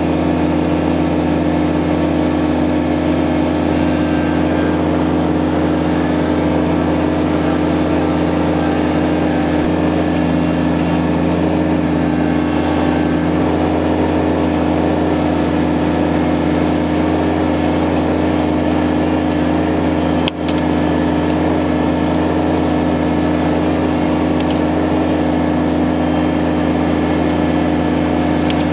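Kubota BX23S compact tractor's three-cylinder diesel engine running at a steady speed while the loader and grapple work. There is a brief dip in the sound about twenty seconds in.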